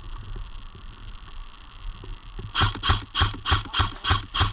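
Airsoft gun firing a quick string of sharp shots, about four a second, starting a little past halfway through. Before the shots there is a steady hiss.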